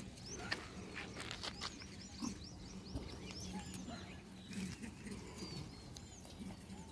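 Many short, high chirps and squeaks come and go all through, with scattered light clicks and a low steady hum beneath them.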